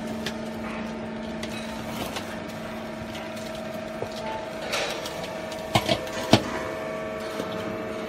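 Small vertical hydraulic baler running, its motor and pump giving a steady hum while the platen compresses cardboard in the chamber. Scattered clicks, and three sharp cracks about six seconds in, the last the loudest.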